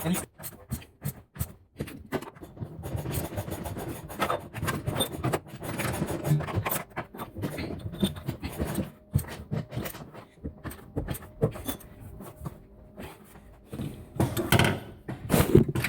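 Hand tools and metal parts at work on a car's rear coilover lower mount: irregular clicking, rubbing and scraping as the lower bolt is fitted and worked in.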